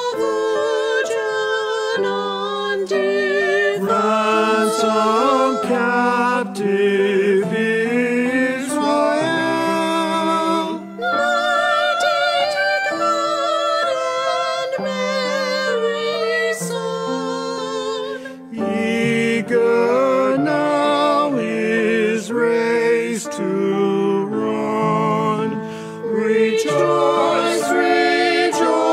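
A small choir singing a hymn or anthem with piano accompaniment, voices held in long notes with vibrato, with a short pause between phrases about 18 seconds in.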